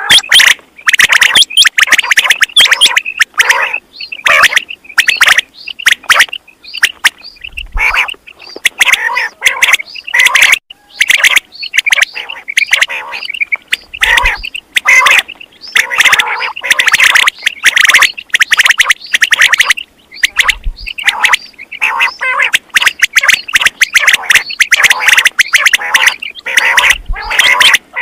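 Recorded quail calls played loud as a hunting lure: a dense, continuous run of sharp chirping calls with only brief gaps, and a faint low thump about every six and a half seconds.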